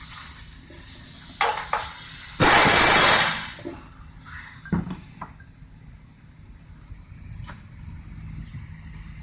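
Scattered clicks and knocks with rustling handling noise as a nut is run down with a hand ratchet. About two and a half seconds in there is a loud rush of hiss-like noise lasting under a second, and the sound is quieter after that.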